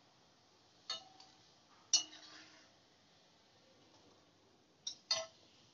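Metal tongs clinking against an aluminium kadai as fried balls are lifted out of the oil: four light clinks, one about a second in, one at two seconds with a short ring, and two close together near the end.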